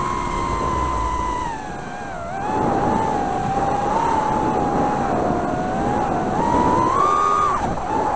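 Emax Tinyhawk Freestyle micro FPV drone's brushless motors and propellers whining, heard from a camera mounted on the drone, with a rush of air. The pitch holds high at first, then dips and wavers as the throttle changes. Near the end it climbs higher and then drops off sharply.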